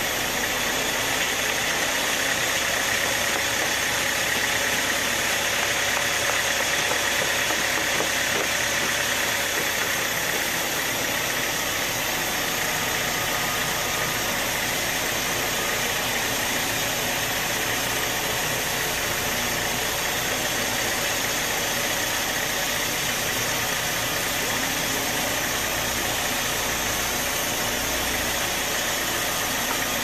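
Band sawmill running steadily: a constant mechanical drone with a steady hum and hiss that does not let up.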